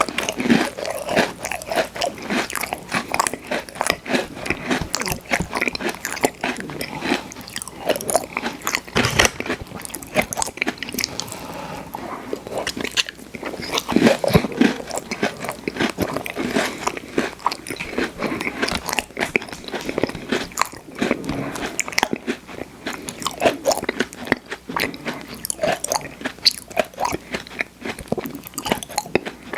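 Close-miked biting and chewing of crunchy Oreo sandwich cookies: a rapid, dense run of crisp crunches.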